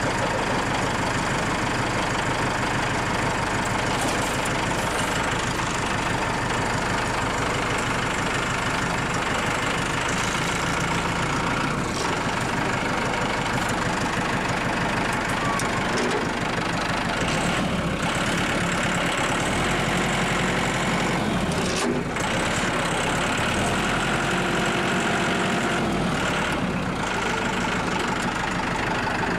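Compact tractor's engine running steadily, its note shifting for a few seconds about two thirds of the way through as the tractor works.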